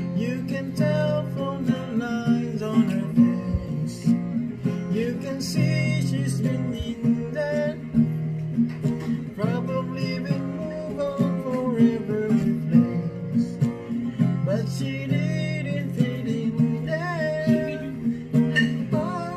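Acoustic guitar strummed in steady chords while a man sings a song along with it.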